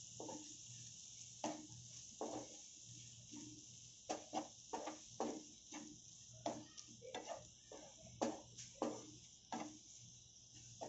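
Wooden spatula stirring and scraping a spiced onion-tomato masala in a nonstick frying pan: irregular soft knocks and scrapes, one or two a second, over a faint steady sizzle.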